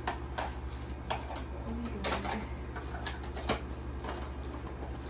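Handling noise from unboxing: irregular clicks, taps and light knocks as a small cardboard accessory box and plastic camera parts are handled and set down, over a steady low hum.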